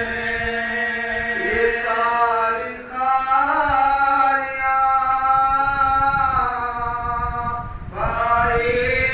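Men chanting an unaccompanied Muharram mourning lament into a microphone, holding long sung notes, with short breaths between phrases about three seconds in and again near the end.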